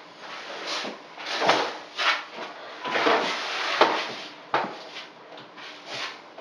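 Hand tool sweeping liquid waterproofing membrane (Laticrete Hydro Ban) across cement board and mesh tape. It makes a run of short scraping, rubbing strokes, roughly one or two a second.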